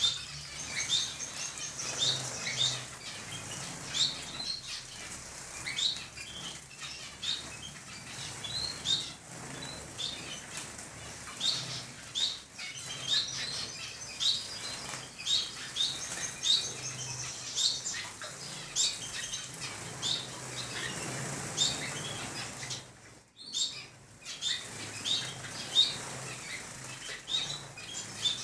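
A flock of small cage birds, finches and canaries, chirping and calling over one another in an aviary, with repeated bursts of wings fluttering.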